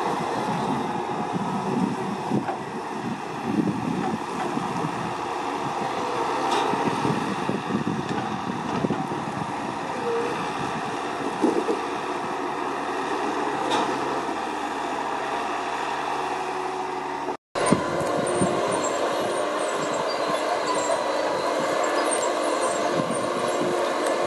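Timberpro TF840B forwarder's diesel engine running steadily while its hydraulic crane loads logs, with a few sharp knocks. About 17 s in the sound cuts out for a moment, then the machine is heard running on.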